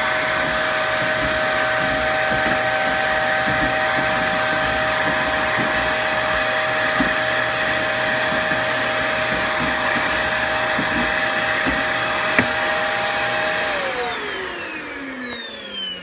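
Vacuum cleaner running steadily with a hose attachment sucking dust from a refrigerator's clogged condenser vent grille, with a couple of light taps along the way. About 14 seconds in it is switched off and its motor whine falls in pitch as it spins down.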